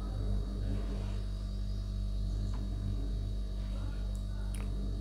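Steady low electrical hum, with two faint clicks, the second near the end.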